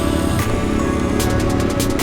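Electronic background music with a driving beat; the drum hits thicken about a second in.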